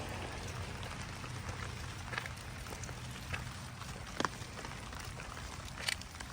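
Steady light rain, with a few sharp ticks about two, four and six seconds in.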